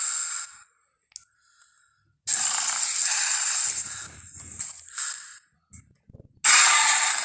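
Jurassic Park T. rex sound effects: loud, noisy rushes with no clear pitch. The tail of one fades at the start, another begins about two seconds in and lasts about two seconds, and a third starts near the end.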